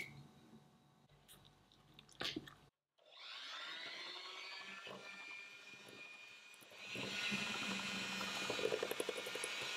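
Electric hand mixer starting up a third of the way in, its motor whine rising as it spins up, then running steadily as its beaters whip an egg into creamed butter and sugar in a glass bowl; from about seven seconds in it gets louder, with fast ticking of the beaters in the bowl. Before it starts there is a sharp click at the very start and a short knock a couple of seconds in.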